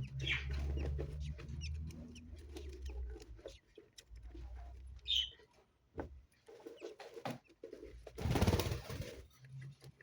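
Pet budgerigars chirping and chattering, with scattered small clicks and a short high chirp about five seconds in. A low hum fades out around three seconds in, and a loud, brief rustling noise comes near the end.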